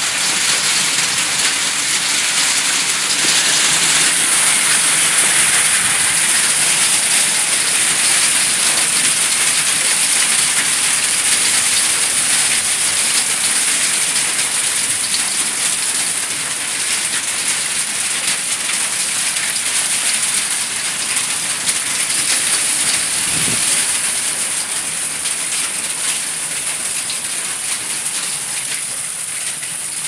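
Rain falling steadily, a dense even hiss of drops on surfaces, easing slightly in the last few seconds.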